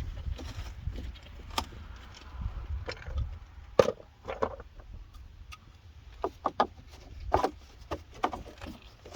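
Wind rumbling on the microphone, with scattered sharp knocks and clicks of plastic shed panels being handled and fitted together.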